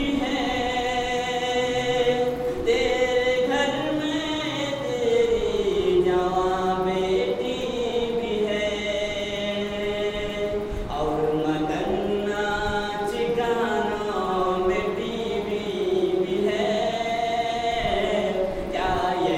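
A man chanting an unaccompanied Islamic devotional recitation into a microphone, in long held notes that slowly wander up and down in pitch, with short pauses between phrases.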